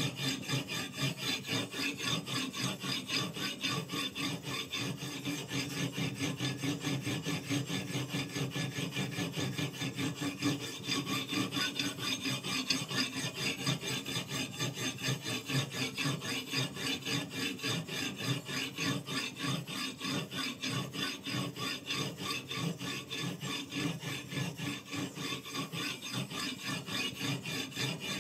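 Abrasive on a guided-rod knife sharpener rubbing along the edge of a steel kitchen knife in a steady run of quick back-and-forth strokes, a dry rasping.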